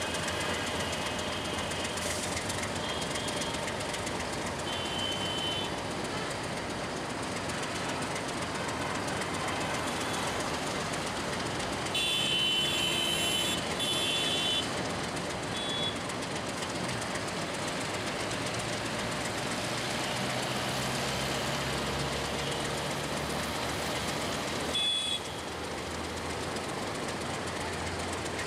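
Diesel locomotive hauling a passenger train slowly round curved track: a steady rumble of engine and wheels, with a low engine hum that grows stronger in the second half. About twelve seconds in there are high-pitched squeals lasting a couple of seconds, and one more brief one near the end.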